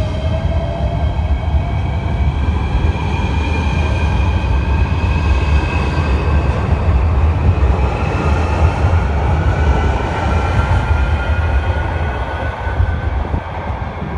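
JR Shikoku 8600 series electric train accelerating away, its VVVF inverter drive giving a jet-engine-like whine that climbs in pitch over a steady low rumble. About eight seconds in, a fresh set of whining tones comes in and rises again.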